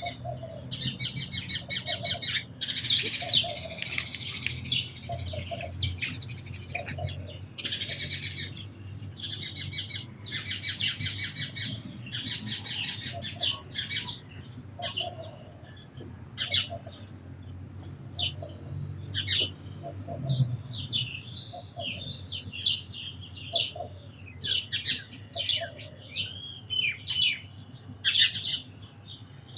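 House sparrows chirping: dense runs of rapid, repeated high chirps through the first half, thinning to scattered single chirps and short warbled notes in the second half.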